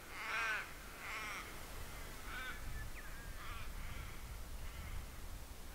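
Ravens calling: a loud call right at the start and another about a second in, then several fainter, more distant calls at intervals, over a low rumble.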